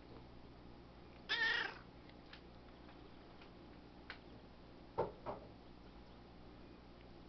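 A domestic cat meows once about a second in, a loud pitched call lasting about half a second. About five seconds in come two short, sharp sounds in quick succession.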